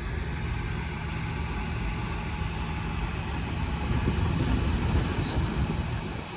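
Heavy engine running with a steady low rumble that grows louder about four seconds in.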